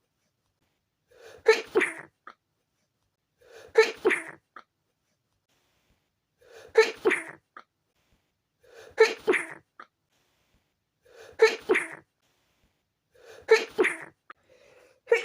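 A person's stifled sneezes, six in a row about every two and a half seconds. Each is a short in-breath followed by a sharp, held-back sneeze in two quick catches. A seventh begins at the very end.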